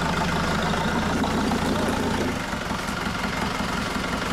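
Engine of a lifted off-road pickup idling steadily, a low drone that eases slightly about halfway through.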